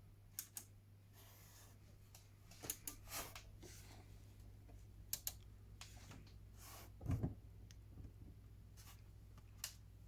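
Scattered light clicks and handling knocks, with one heavier low knock about seven seconds in, over a faint steady low hum.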